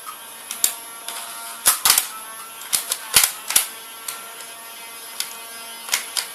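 Nerf Stockade flywheel blaster firing: a steady motor whine with sharp, irregular mechanical clicks as darts are pushed into the flywheels and the rotating cylinder advances.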